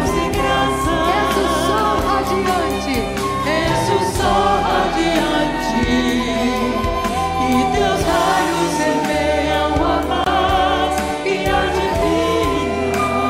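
Devotional song sung in Portuguese by a choir with guitar accompaniment; the lines sung are "de bênçãos e graças" and "És o Sol radiante, e Teus Raios semeiam a Paz e a Divina Esperança".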